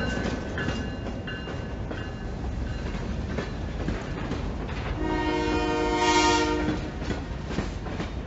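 Air horn of a North Shore Railroad EMD SW1500 diesel switcher locomotive blowing one long blast about five seconds in, over the low, steady rumble of the locomotive and its hopper cars rolling along the track.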